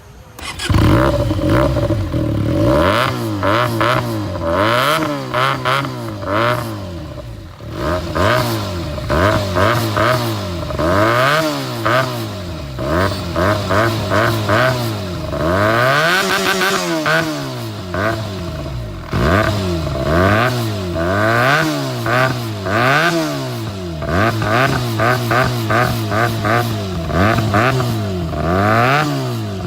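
Benelli 302's parallel-twin engine being revved through an aftermarket slip-on muffler. It blips the throttle over and over, each rev rising and falling within a second or two and dropping back to a steady idle between bursts.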